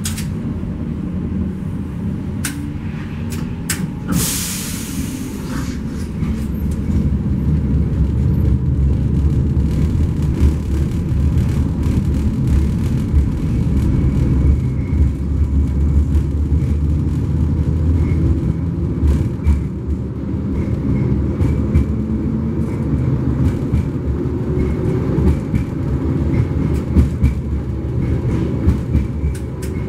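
71-134K (LM-99K) tram running along the track, heard on board: a steady low rumble of wheels and running gear with scattered clicks, and a short hiss about four seconds in.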